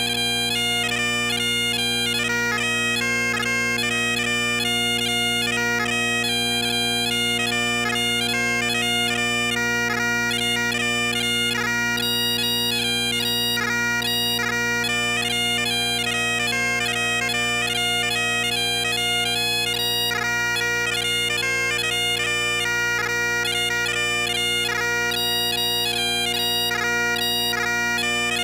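Great Highland bagpipes playing a quick-moving tune over steady, unbroken drones.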